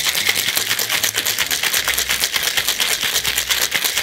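Ice cubes rattling hard inside a stainless steel cocktail shaker, shaken vigorously in a fast, steady rhythm.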